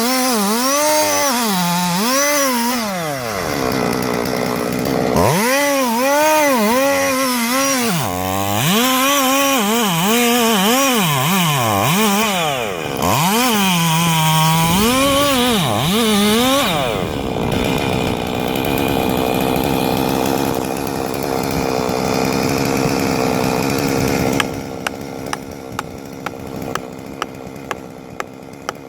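Two-stroke chainsaw engine revved up and down over and over, then held steady at high speed. Near the end it gives way to a quieter sound with sharp clicks about twice a second.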